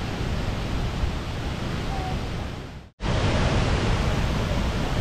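Steady roar of rushing water from Ban Gioc Falls, an even, dense rush. It cuts out for a moment about three seconds in, then comes straight back at the same level.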